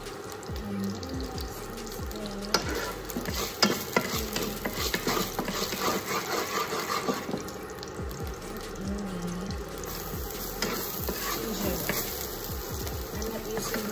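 Chopped garlic and ginger sizzling in hot oil in a nonstick wok, stirred with a wooden spatula. The spatula taps and scrapes against the pan from a couple of seconds in.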